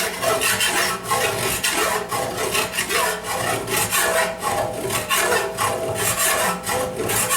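Hand file rasping across lead body filler on a motorcycle fuel tank, in quick repeated strokes about two to three a second, smoothing the leaded seam.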